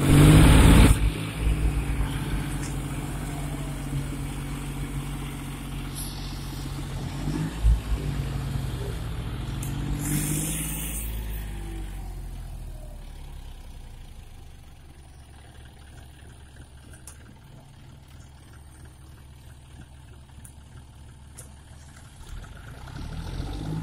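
John Deere 5042D tractor's diesel engine running while the tractor is bogged with its rear wheel sunk in paddy-field mud. It is loud at the start, rises and falls in pitch as it is revved around the middle, then runs quieter through the second half.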